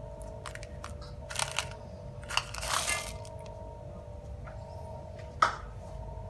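A bag of chocolate chips crinkling and rustling as the chips are tipped into a mixing bowl, with scattered clicks. The longest rustle comes a little under three seconds in, and a sharp click comes near the end, over a steady low hum.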